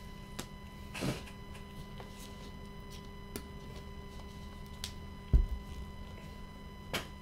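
Steady low electrical hum under small handling noises on a tabletop: a soft swish about a second in, a few light clicks, and a low thump a little past five seconds as a gloved hand reaches over to the stack of trading cards.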